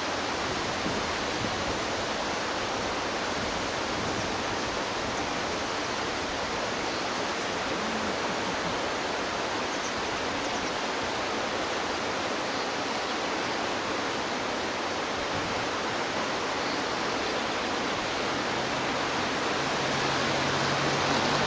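Fast mountain river with white water rushing, a steady, even rush of water. A faint low hum comes in near the end.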